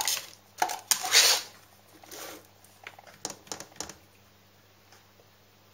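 Cardboard box and plastic packaging handled by hand: a few knocks and short rustling scrapes, clustered in the first four seconds.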